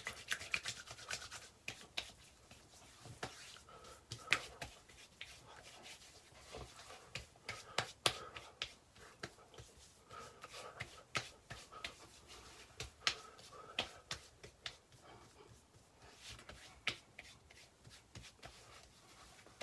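Hands slapping and patting aftershave splash onto a freshly shaved face, with palms rubbing together: a faint, irregular run of short, wet slaps.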